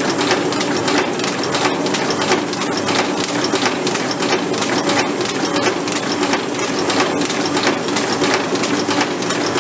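Fully mechanical butter filling, forming and wrapping machine running: a steady, dense clatter of rapid clicks from its rotary forming table and moving linkages.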